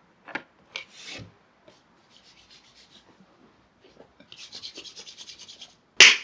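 Close rubbing and rasping handling noise near the microphone: a few clicks, then a run of fine rasping that grows louder, ending in a sharp knock.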